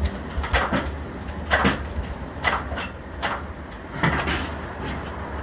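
A person shifting and settling into a seated position on a treatment table: scattered rustles, soft knocks and creaks, with one brief high squeak about halfway through.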